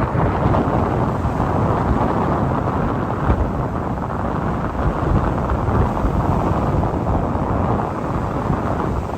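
Strong gale-force wind blowing across the microphone: a continuous low rumbling buffet that swells and eases with the gusts.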